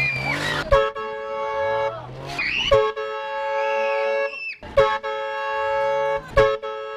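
Train horn blasting a steady multi-note chord in four separate blasts of one to two seconds each, each starting abruptly with short gaps between, the last still sounding at the end.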